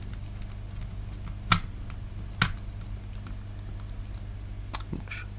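Three sharp little clicks of tools and plastic controller parts being handled on the workbench, over a steady low electrical hum.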